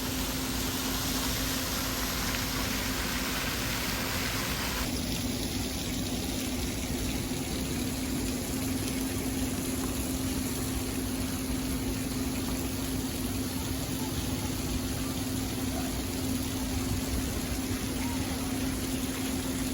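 Steady open-deck background: a constant low mechanical hum under a continuous hiss. The upper hiss drops away abruptly about five seconds in, and the hum carries on unchanged.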